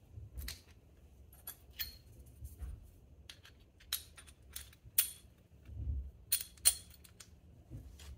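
Scattered light clicks and clinks of small hardware being handled: a plate pushed onto bolts carrying bearings, spacers and springs, and 1/4-20 lock nuts picked up. The sharpest clicks come about five seconds in and again near seven seconds.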